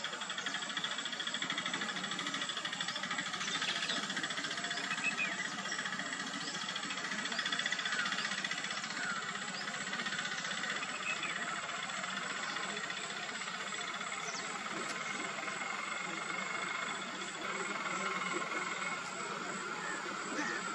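Outdoor ambience: a steady, dense insect chorus, with a few short bird chirps scattered through it.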